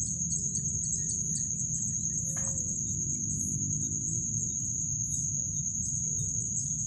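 Insect trilling steadily on one high note, with faint ticks above it, over a low rumbling noise like wind on the microphone.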